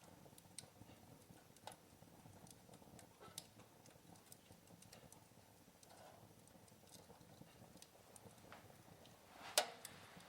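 Wood fire crackling softly: scattered, irregular pops and ticks over a faint steady hiss, with one louder pop near the end.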